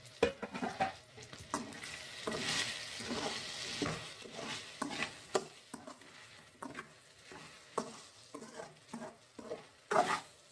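Metal spoon stirring and scraping masala-coated chicken pieces around a metal kadai, with irregular knocks against the pan. The chicken fry sizzles under it, most clearly about two to four seconds in.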